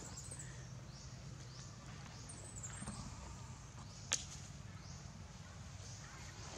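Quiet outdoor ambience with a steady low hum and a faint high chirp, broken once about four seconds in by a single sharp snap.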